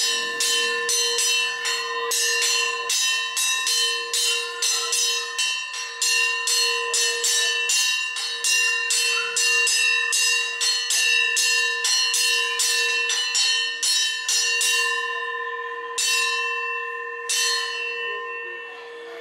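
Hand-held metal plate gong (kansar) struck rapidly and evenly, about three strikes a second, each ringing with the same bright metallic tone. The beating stops about 15 seconds in, followed by two single strikes, and the ringing fades away near the end.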